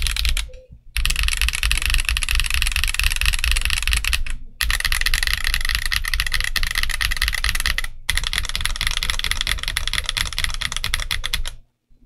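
Typing on an Akko ACR Pro 68 mechanical keyboard with stock Akko Crystal switches and ASA-profile PBT keycaps: a dense stream of keystrokes, broken by brief pauses about half a second in, about four seconds in, around eight seconds and just before the end.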